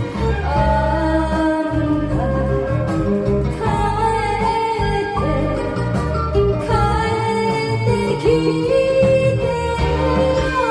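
A woman singing a Japanese enka song through a karaoke microphone over the backing track, holding long notes with a slight waver.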